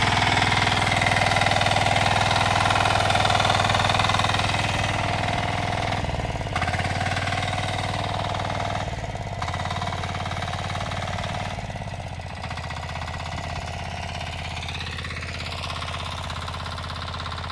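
Diesel engine of a walk-behind power weeder running while its rotary tines churn soil. The engine note steps down a few times, about six seconds in and again later, and grows quieter toward the end.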